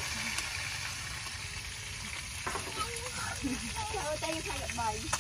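Fish frying in hot oil in a frying pan: a steady sizzle.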